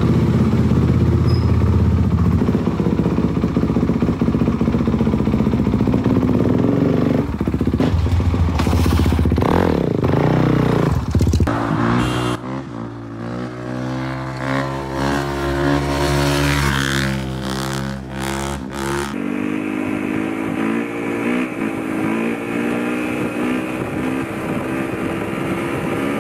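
Dirt bike engine running hard and being revved, its pitch rising and falling as it accelerates and eases off. There are several abrupt cuts between takes.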